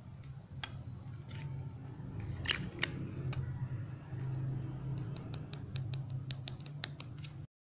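Clicks and taps of a clear plastic phone case being handled and pressed onto a smartphone, a few at first and then a quick run of clicks as the case is snapped on, over a low steady hum. The sound cuts off abruptly near the end.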